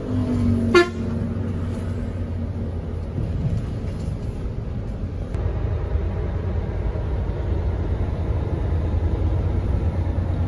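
A short, loud horn toot about a second in, over the steady low drone of a Mercedes-Benz O500RS 1836 sleeper bus, heard from the rear of its cabin.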